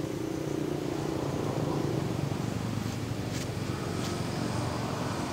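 A steady low motor hum, like an engine running, with a few faint clicks between three and four seconds in.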